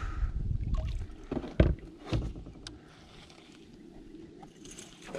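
Knocks and thumps against a canoe's hull as the angler moves and handles his rod, the loudest about a second and a half in, after a low rumble in the first second; faint handling noises follow.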